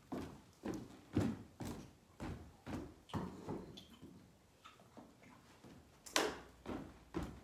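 Footsteps on a bare wooden floor, a knock about every half second, with one louder knock about six seconds in.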